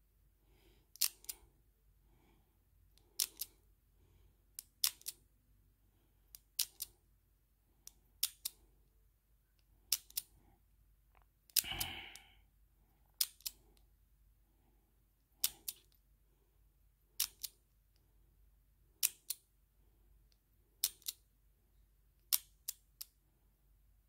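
American Lock dial combination padlock being worked through combinations: sharp metal clicks in pairs about every two seconds as the locked shackle is tugged and drops back, with faint scraping of the dial turning between them. About halfway there is one longer, louder rattle.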